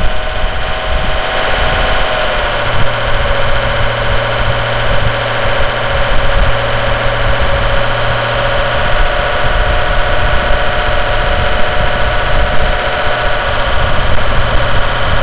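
Diesel truck engine running steadily, with a slight shift in its sound about two seconds in.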